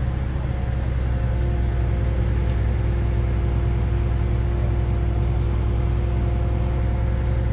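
An engine running steadily at constant speed: a low rumble with a steady hum over it.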